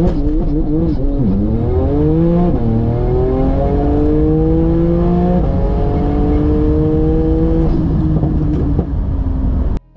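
Porsche 911 Turbo's twin-turbocharged 3.8 L flat-six, tuned to over 900 hp, under full-throttle acceleration, heard from inside the cabin. The engine note climbs in pitch through each gear and drops sharply at each of about four quick upshifts, then cuts off suddenly near the end.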